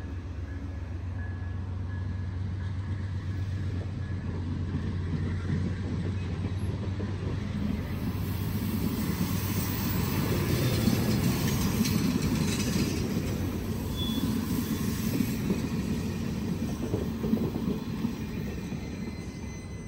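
CN passenger cars rolling past at close range: a steady rumble of steel wheels on the rails with scattered clicks over the joints, loudest in the middle and easing off near the end as the last car goes by.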